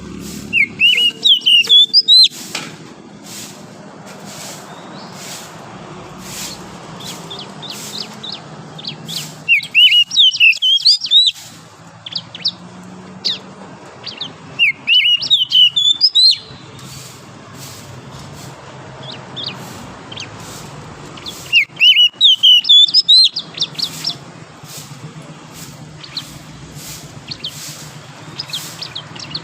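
Oriental magpie-robin singing: four loud bursts of rapid whistled phrases a few seconds apart, with softer scattered chirps between them and a low steady hum behind.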